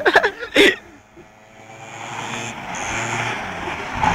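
Small quad bike engine revving as it slides around on loose dirt, the tyres hissing on the ground, growing steadily louder as the quad comes close near the end. A brief burst of voice in the first second.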